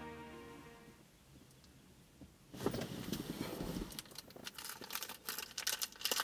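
A plastic candy wrapper crinkling and crackling, starting about four seconds in after a low rustle. A music track fades out in the first second.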